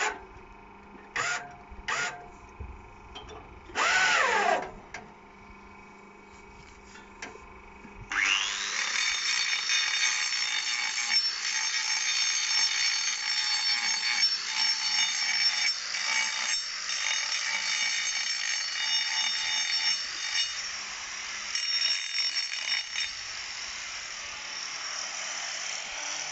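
A handheld angle grinder starts with a rising whine about a third of the way in, then runs steadily, grinding a cow's hoof during trimming. Before it come a few knocks and a short loud sound.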